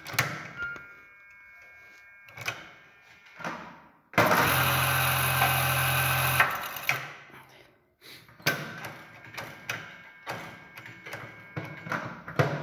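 Industrial buttonhole sewing machine running through one short sewing cycle of about two and a half seconds, starting sharply about four seconds in and then stopping. Its needle bar has been newly replaced and it is stitching again. Clicks and fabric handling come before and after.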